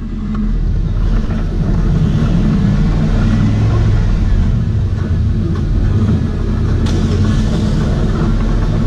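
Engine of an LS-swapped Jeep Wrangler TJ, a 5.3 V8, running with a steady low rumble while it crawls a rocky trail, heard from on board the Jeep.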